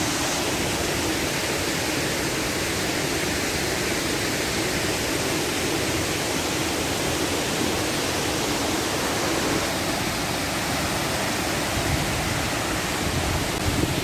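Narada Falls, a large waterfall, pouring down a rock face: a steady, even rush of falling water.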